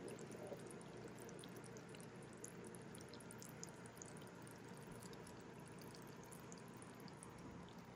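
Faint, steady sizzle with scattered tiny pops: the masala gravy of the mutton chops simmering gently in the pan.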